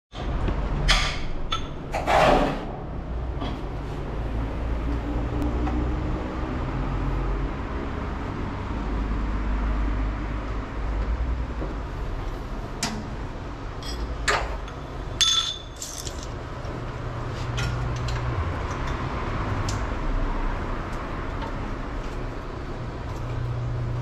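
Metal tools clinking and knocking against the underside of a Volkswagen Kombi during an oil change. There are a few sharp clinks near the start and a cluster in the middle, over a steady low hum.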